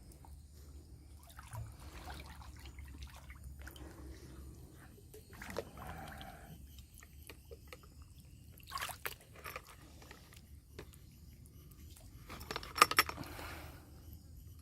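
Water sloshing and splashing in intermittent bursts, the loudest a cluster of splashes with sharp knocks near the end.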